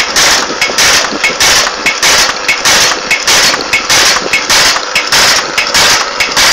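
Camphor tablet making machine running: its press strokes clatter in an even rhythm, a little under two a second, over a steady motor hum.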